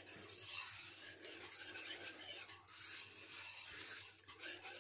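Wire whisk stirring a thick, creamy milk mixture in a frying pan, its wires scraping and rubbing against the bottom of the pan in quick, irregular strokes.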